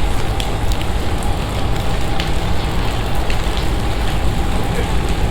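Heavy summer downpour: steady rain hiss with scattered sharp drop ticks.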